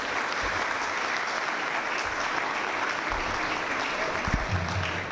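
Audience applauding steadily, a dense crackle of many hands clapping, with a single low thump about four seconds in.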